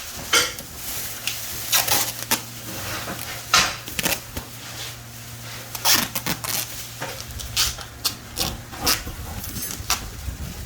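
Irregular knocks, clicks and scrapes of tools against hard surfaces during tiling work, over a steady low hum that starts just after the beginning and stops near the end.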